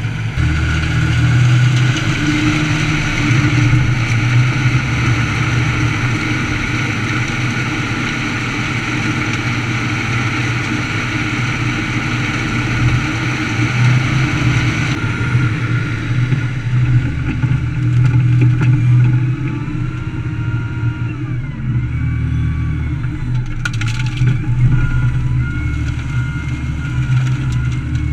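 Heavy diesel machinery running steadily: a wheel loader's engine up close, with a Bandit Beast 3680 horizontal grinder chewing sawmill offcuts into chips. About halfway through, the grinding hiss drops away and a thin whine rises and falls in pitch over the steady engine hum.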